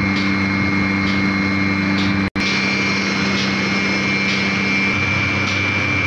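Portable bucket milking machine's electric vacuum pump running with a steady hum and a high whine, while its pulsator clicks faintly about once a second. The sound cuts out for an instant a little over two seconds in.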